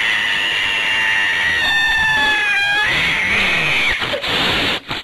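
Angry domestic cat yowling in long, drawn-out howls: one that drops in pitch at its end, then a second with hardly a pause, broken briefly near the end. It is the aggressive caterwaul of a cat warning someone off.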